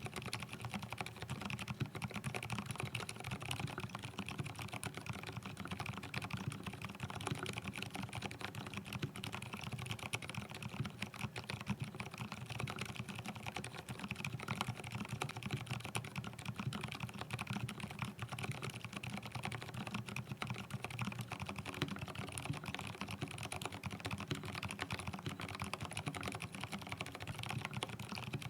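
Continuous fast typing on a mechanical keyboard fitted with lubed Gateron Silent Brown switches in an aluminium-plate mStone Groove T board. The keystrokes come as a dense, steady run of dampened clicks.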